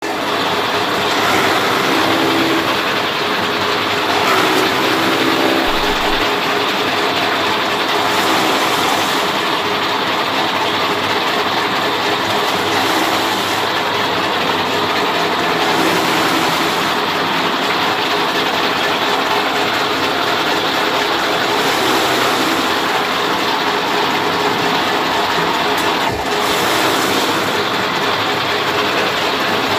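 Chaff cutter running under load as green fodder stalks are fed in and chopped, a loud, steady mechanical noise, with one short knock about 26 seconds in.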